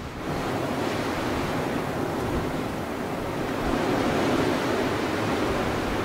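Strong blizzard wind blowing in a steady, dense rush, growing a little stronger about four seconds in.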